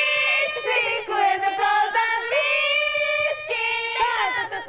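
Several young women's voices singing together into a microphone, with held notes that slide at their ends.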